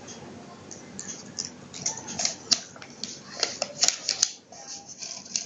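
A dog crunching and chewing a crisp snack, a run of irregular sharp crunches that is densest in the middle and eases off near the end.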